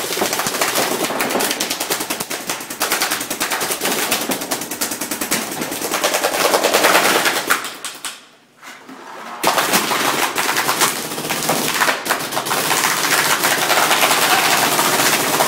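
Several paintball markers firing rapidly and continuously, many shots a second. The firing breaks off for about a second and a half around eight seconds in, then resumes.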